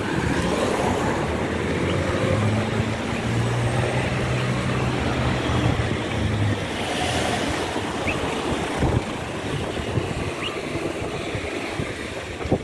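Wind rushing over the microphone and street traffic, with a car engine's steady low hum from about two seconds in until about six and a half seconds.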